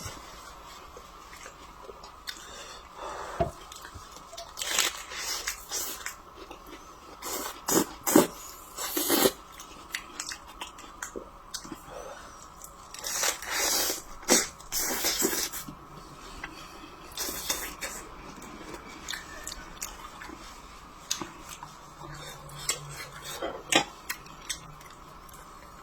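Close-miked chewing and crunching of food in irregular bites, with the occasional light clink of dishes or cutlery.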